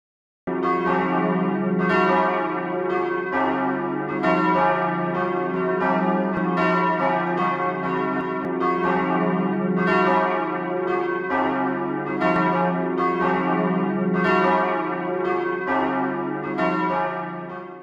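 Several church bells ringing together in a peal, strikes overlapping at an uneven pace over a steady low hum of the big bells; the ringing fades out near the end.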